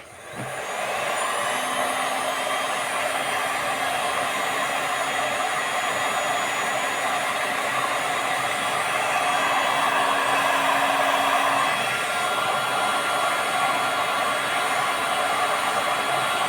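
Electric hot-air blower running steadily, heating a stuck part of a Saito FA-300T model engine to free it after oiling. It starts right away and comes up to full blow within about a second.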